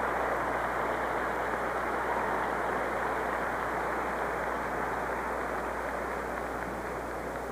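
Crowd noise in a gymnastics arena: a steady din that eases off slightly near the end, over a low mains hum from the old broadcast recording.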